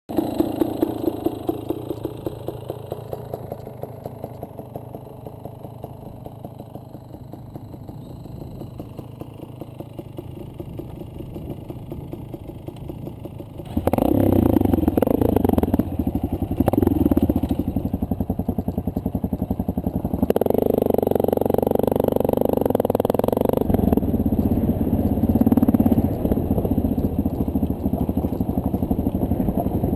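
2009 Honda CRF230L's air-cooled single-cylinder four-stroke engine idling with a steady putter. About fourteen seconds in it suddenly gets louder and revs as the bike rides off, its engine speed rising and falling through the rest of the ride.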